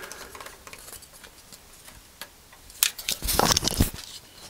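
Clicks, knocks and rattles of hard plastic parts being handled on a pump-action airsoft shotgun: a few light ticks, then a quick cluster of louder clicks and scrapes about three seconds in.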